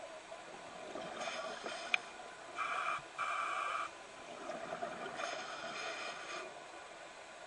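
Scuba regulator breathing heard underwater: hissing breaths with a faint whistle, repeating every couple of seconds, the loudest about three seconds in with a brief break in the middle. A single sharp click about two seconds in.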